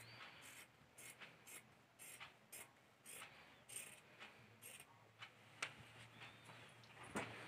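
Dressmaking scissors snipping through cloth, a faint crisp snip about twice a second, with one sharper click near the end.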